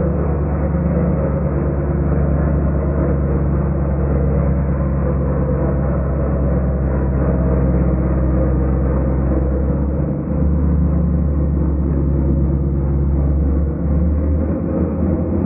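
Chevrolet Corvette C6 V8 engine held at high revs during a burnout, spinning its rear tyres: a steady, deep drone that drops away briefly twice in the second half.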